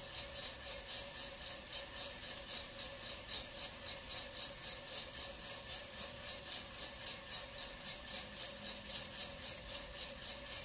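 Green coffee beans tumbling in the rotating drum of a Kaleido M10 Sniper Pro electric roaster: a rhythmic swish repeating a few times a second over a steady motor hum. This is the soak phase just after the beans are charged, with the heater switched off.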